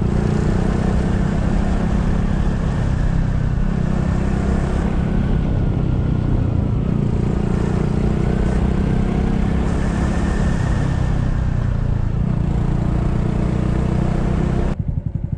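Small motorcycle engine running at a steady speed while riding, heavily mixed with wind rush on the microphone; it cuts off abruptly near the end.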